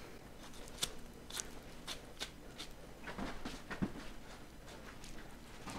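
Faint, scattered clicks and soft handling noises of a top sirloin butt being seam-separated by hand, the knife run along the natural seam where it sticks.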